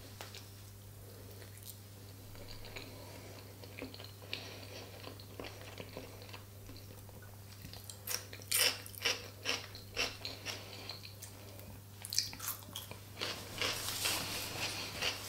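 A person chewing food close to the microphone. Sharp, wet mouth sounds come about two to three a second from about eight seconds in, with a short pause, over a faint steady hum.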